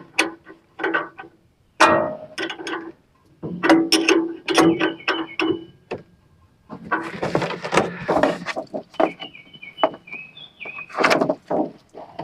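Hand work on a Frontier OS27 band sawmill's blade guide assembly: scattered metal clicks and knocks with short ringing tones, and a rustle of handling a little past the middle.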